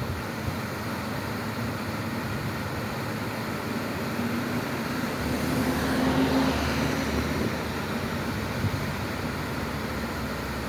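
Steady rushing of a waterfall, with a low hum that swells and fades about five to seven seconds in.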